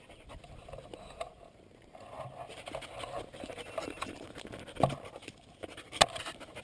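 Footsteps and rustling through dry grass, an uneven patter of small steps, with two sharp knocks about a second apart near the end.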